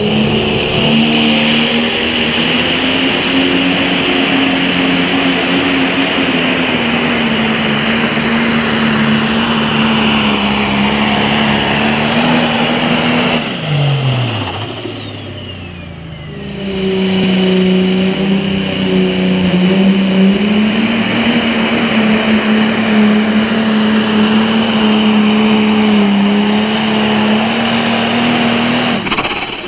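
Two pro stock pulling tractors' turbocharged diesel engines in turn, each held at full throttle through a pull at a steady high pitch with a steady high whine over it. About halfway the first engine's pitch falls as it is shut down at the end of its pass. A couple of seconds later the second comes up to full throttle and runs until it winds down near the end.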